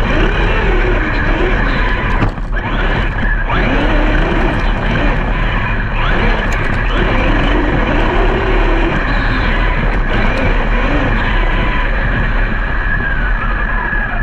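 Brushless electric RC monster trucks driving, their motor whine rising and falling in pitch with the throttle over a steady rush of noise.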